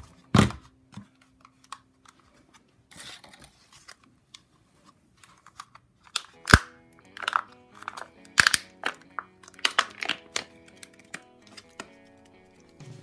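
Thin plastic cup crackling and crunching as it is squeezed and twisted to work blue soap dough out of it, in irregular sharp clicks, thickest in the second half, after a thump about half a second in.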